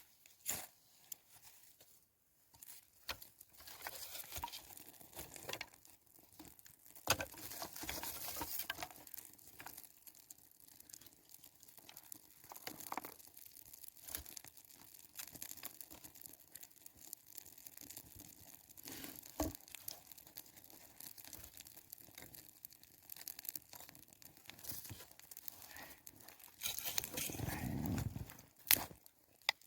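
Campfire being lit with cotton wool and kindling: irregular small crackles, snaps and rustling of twigs and bark as the flame starts to catch, with a louder rustling burst near the end.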